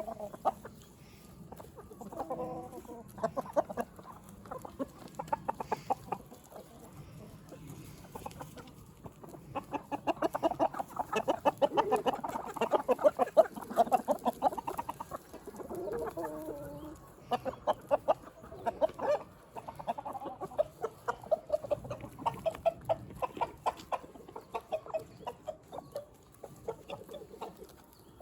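Free-range hens clucking in runs of quick clucks, loudest and busiest through the middle, with one longer call falling in pitch about sixteen seconds in.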